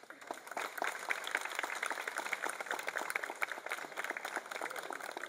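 A small group of people applauding, a dense patter of hand claps that starts at once and thins slightly near the end.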